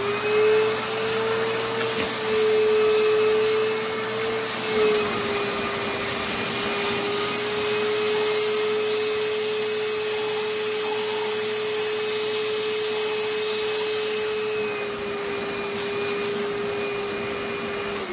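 Vacuum cleaner with a small hose running with a steady whine that dips slightly in pitch a couple of times, sucking aluminum shavings out of a freshly tapped head-bolt hole in an engine block. It is switched off at the end, the whine falling away.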